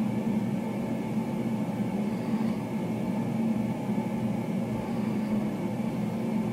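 Steady low hum with a hiss over it, unchanging and with no distinct events: background room tone picked up by the narrator's microphone.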